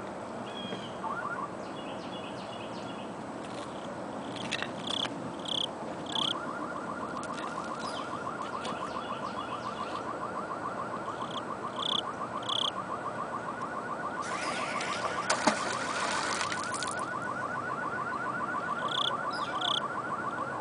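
Outdoor ambience by a river: birds chirping in short repeated notes over a fast, steady trill that starts about six seconds in, with a short loud burst of noise about fifteen seconds in.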